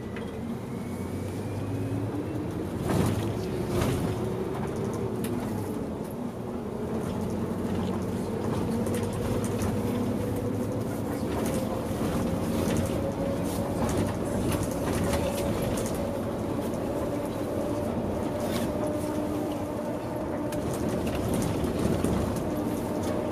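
Interior running noise of a Mitsubishi Fuso Aero Ace tour coach on the move, with a steady drone and a whine that slowly rises in pitch. A couple of knocks sound a few seconds in.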